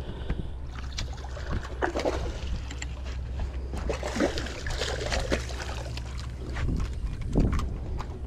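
Hooked redfish splashing and thrashing at the water's surface beside a boat as it is reeled in, loudest around the middle. Scattered clicks and knocks over a steady low rumble.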